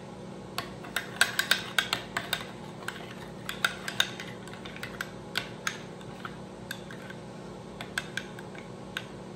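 Metal spoon stirring a thick mayonnaise sauce in a small glass bowl: quick, irregular clinks and scrapes of the spoon against the glass, busiest in the first half and thinning out later.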